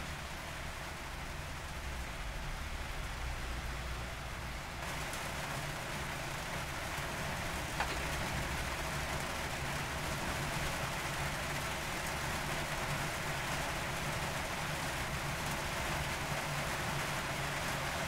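Real rain falling steadily, growing a little fuller and heavier about five seconds in, with one sharp tap near the middle.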